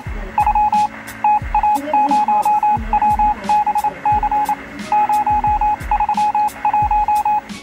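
Edited-in music with a beat: a regular kick drum and hi-hat under rapid, repeated electronic beeps, all on one pitch in a rhythmic pattern, like a phone's dial tones.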